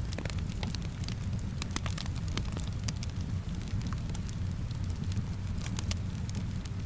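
Rain and fireplace ambience: a steady low rumble of fire with a hiss of rain, scattered with light, irregular ticks and crackles.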